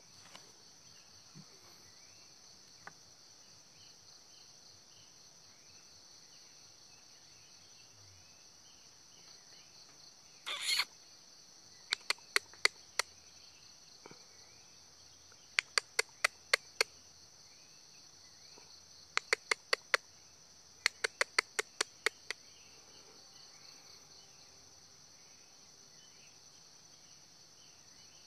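Steady high-pitched drone of insects. About ten seconds in there is a brief rustle, then four quick runs of five or six sharp clicks each, at about four a second, from about twelve to twenty-two seconds in.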